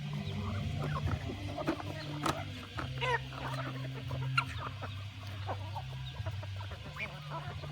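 A flock of chickens clucking, with many short calls overlapping throughout, over a low hum that shifts in pitch now and then.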